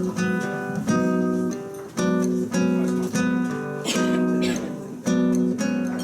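Acoustic guitar strumming chords in a steady rhythm, with an accented strum about once a second and lighter strokes between: the instrumental intro to a song.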